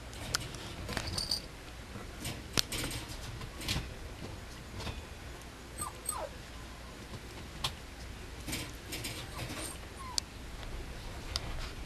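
Mame shiba puppy chewing and pawing a plush toy: scattered small clicks and rustles, with a couple of brief, thin whimpers about six and ten seconds in.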